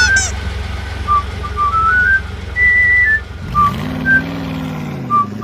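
A cheerful whistled tune of short hopping notes over a steady low hum, with a car engine sound effect whose pitch rises and then falls about halfway through.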